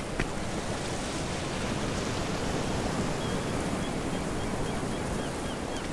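Steady wash of wind and sea surf, an even rushing noise with no let-up. A faint, quick series of high chirps runs through the second half.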